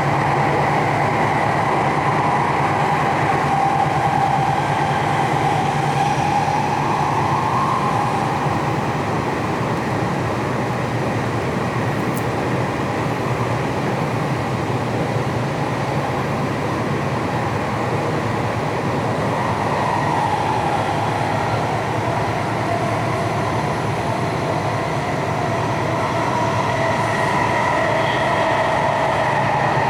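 Tokyu 3020-series electric train running, heard from inside the passenger car: a steady rumble of wheels and running noise, with a motor whine. The whine rises in pitch over the first several seconds, fades, and returns in the last third.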